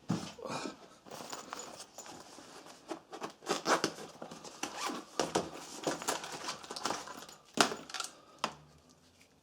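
Handling noise from small plastic and metal parts: irregular clicks, taps and rustling, with one sharper knock about three-quarters of the way through.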